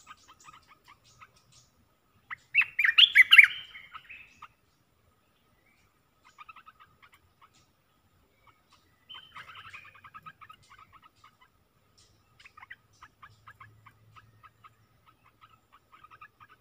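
Olive-winged bulbul singing: a loud, bubbling phrase about two and a half seconds in and a softer one around nine seconds, with runs of short chirps in between.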